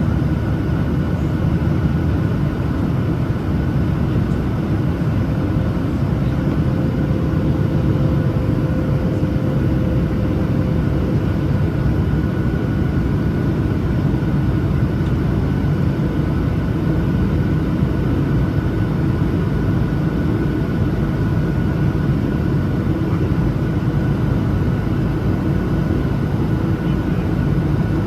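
Cabin noise of a Boeing 737-900ER climbing after takeoff, heard from a window seat: steady engine and airflow noise from its CFM56-7B turbofans, with a few faint high steady tones from the engines over the low noise.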